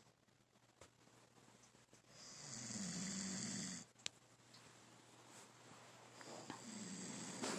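A person snoring in sleep: two long snores about four seconds apart, each lasting about a second and a half, with a low rumble and an airy hiss. There is a brief sharp click just after the first snore.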